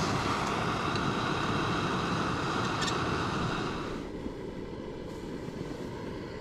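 Small canister gas stove burning, a steady roaring hiss from the burner. It turns quieter about four seconds in, with a pot sitting on the flame.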